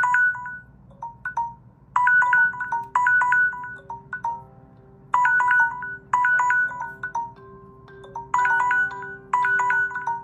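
Smartphone timer alarm ringing: a short melodic chime phrase that repeats about every three seconds, signalling that the countdown has run out. A steady lower tone sounds underneath from about two seconds in.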